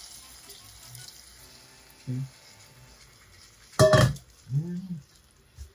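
Water poured from a metal bowl into a hot pan of curry chicken wings, a hiss and splash that dies away within the first second or so. About four seconds in comes a loud, ringing metallic clank, followed by a short low tone that rises and falls.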